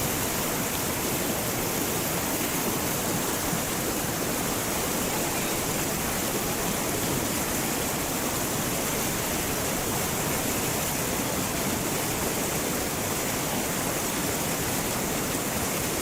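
Fast-flowing river water rushing, a steady even noise with no engine note heard above it.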